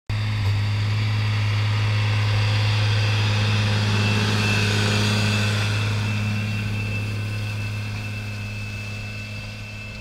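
Tractor's diesel engine running steadily under load while pulling a mounted reversible plough past, a low hum with a steady high whine above it. The sound fades over the last few seconds as the tractor moves away.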